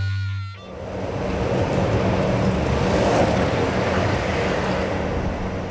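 Longboard wheels rolling over a concrete garage floor: a steady rushing rumble with a low hum underneath, swelling to its loudest midway and then tapering off.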